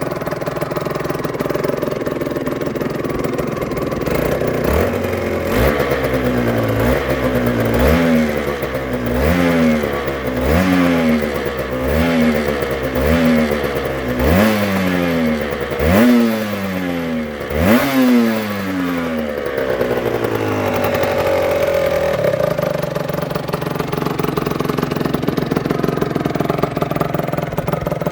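Aprilia RS125's 125 cc two-stroke single-cylinder engine idling, then revved in about ten quick throttle blips, each one jumping up in pitch and falling back, before it settles back to a steady idle.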